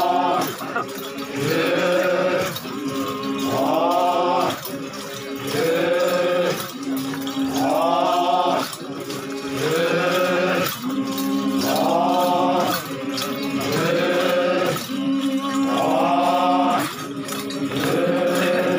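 Male troupe of Yimchunger Naga dancers chanting a traditional folk song together, rising calls alternating with a held low note in a cycle that repeats every few seconds.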